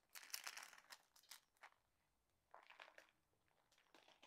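Faint crinkling of plastic packaging being handled, in several short crackly bursts with brief silences between.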